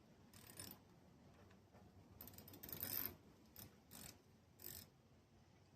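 Faint, short scrapes and clicks of hand work on a mower engine's air filter housing and its mounting screws, a few separate handling noises with quiet between them.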